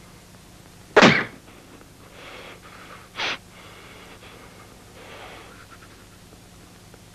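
A man gasping: one loud, sharp gasp about a second in and a shorter one about two seconds later, with fainter, slightly voiced breaths between, as if catching his breath in grief.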